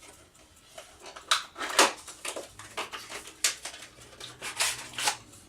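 Plastic packaging of an M.2 NVMe solid-state drive being opened and handled: an irregular series of short clicks, snaps and crinkles.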